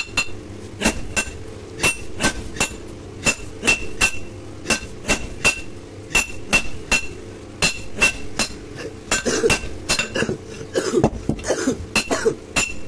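Hand hammer striking a red-hot steel blade on an anvil, about two blows a second, each blow giving a short metallic ring.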